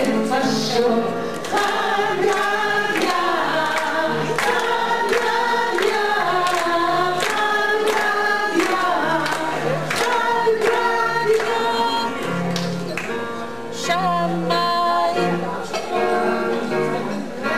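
A choir of voices singing with instrumental accompaniment and a steady beat.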